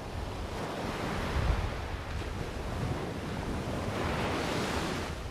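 Ocean surf washing in, with wind buffeting the microphone as a low rumble. A wave swells up near the end.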